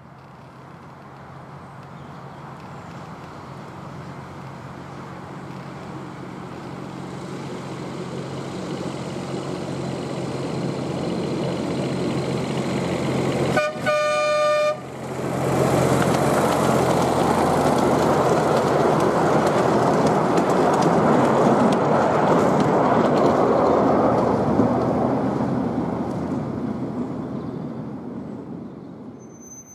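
Fenlow 4w-4wDH diesel-hydraulic miniature locomotive approaching with its passenger carriages, growing steadily louder, sounding a short horn blast about halfway through. It then runs close past and fades away.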